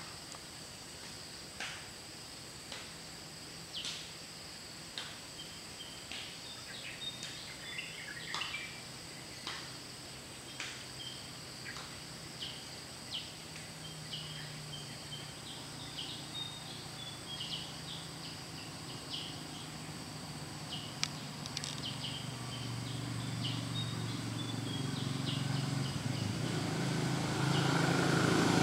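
Outdoor ambience: a steady high-pitched insect drone, with short chirps about once a second. A motor's low hum grows steadily louder over the last few seconds.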